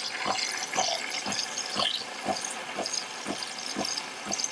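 De'Longhi Nespresso Lattissima Touch frothing milk: a steady hiss of steam and liquid with a regular pulsing about twice a second.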